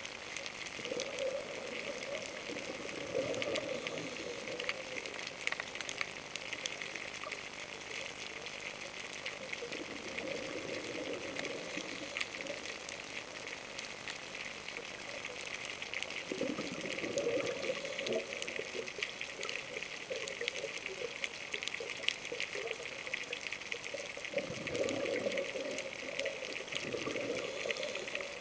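Scuba diver's exhaled bubbles rushing and gurgling from the regulator, heard underwater, four times at intervals of about seven seconds, over a steady crackling hiss.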